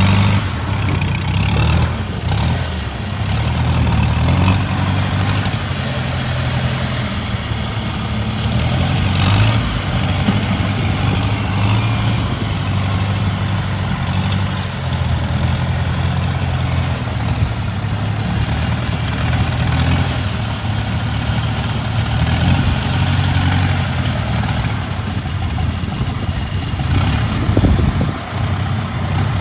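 Farm machine's engine running steadily under load, its pitch rising and falling a little, with a brief dip near the end.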